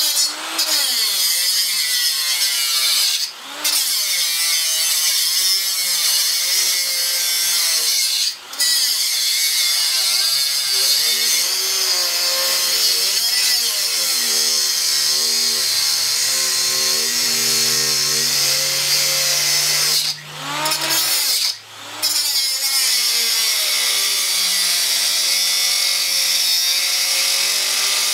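Electric angle grinder cutting steel, its whine wavering in pitch as the disc bites, with four brief dips where it eases off the work.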